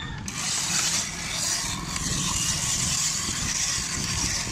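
Hand-cranked ice shaving machine shaving a block of ice: the ice grinding over the blade makes a steady, harsh scraping hiss that starts a moment in.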